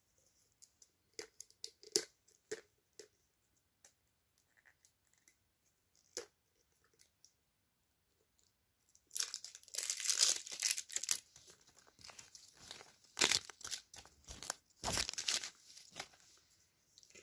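Scattered clicks and crinkles of a small toy's packaging being handled, then from about nine seconds in a dense run of crinkling and tearing as the wrapper is torn open.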